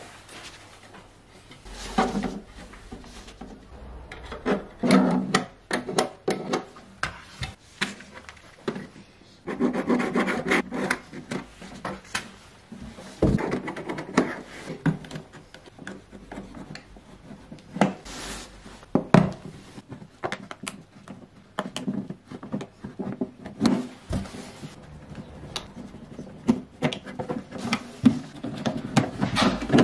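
Hands working a plastic jug: irregular bouts of rubbing and scraping as a marker traces a line on the plastic, and a utility knife blade cutting into the jug. Sharp small clicks and knocks of plastic being handled come between the scrapes.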